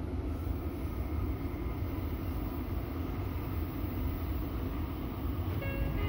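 Steady low hum and rumble of a Meitetsu 3300 series electric train standing at a station platform, heard from inside the car behind the driver's cab. A short electronic tone sounds near the end.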